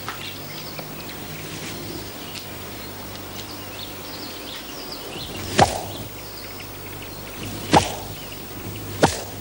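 Three sharp whip strokes, the first about two seconds before the second and the last about a second and a half after, over faint outdoor bird and insect sounds.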